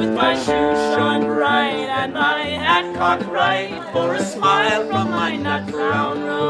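A man singing a Celtic folk song over a strummed acoustic guitar.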